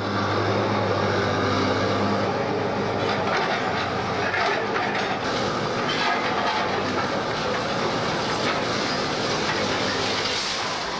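Hydraulic demolition excavator working: a steady diesel engine drone, strongest in the first few seconds, under continuous crunching and clattering of masonry and rubble as its arm pulls a building down.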